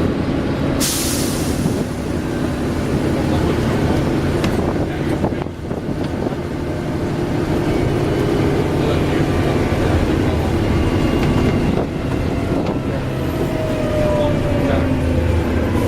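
Diesel engine of a Volvo Olympian double-decker bus running under way, heard on board. A short sharp hiss of air comes about a second in, and there is a brief drop in level about five and a half seconds in.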